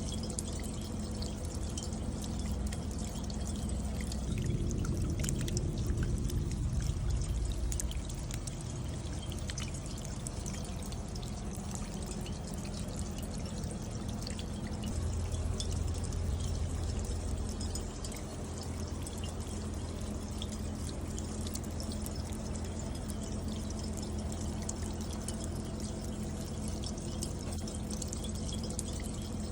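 Light rain running down a copper bucket rain chain: water pouring and trickling from cup to cup, with many small drips ticking on the copper. A low rumble swells twice, about four seconds in and again around fifteen seconds.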